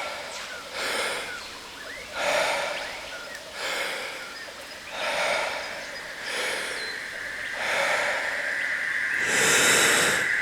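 A person's deep, rhythmic Wim Hof power breaths, about one every second and a half, over steady jungle waterfall ambience. Near the end comes one longer, louder breath, and a steady high tone joins the background.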